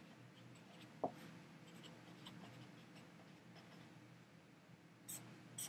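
Faint scratching of a felt-tip marker writing on paper, with a small tick about a second in and two light clicks near the end.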